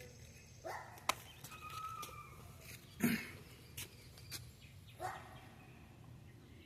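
Faint, scattered calls of farmyard birds: three short calls about two seconds apart, with a thin chirp and a couple of sharp clicks between them.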